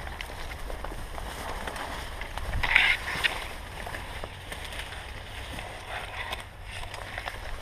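Leaves and branches rustling and swishing against the camera and clothing as someone pushes through dense undergrowth, with small crackles of foliage. A louder brush of leaves comes about three seconds in.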